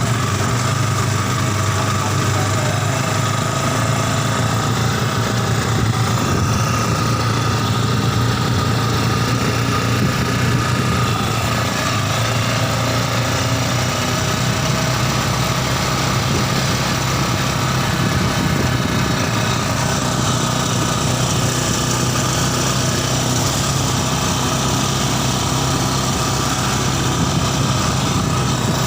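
Yamaha Scorpio Z single-cylinder four-stroke motorcycle engine, fitted in a homemade mini buggy, running steadily at an even speed without revving.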